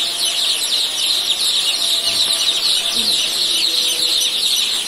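A large brood of young ayam joper chicks peeping constantly, many high, short, downward-sliding cheeps overlapping into one continuous chorus.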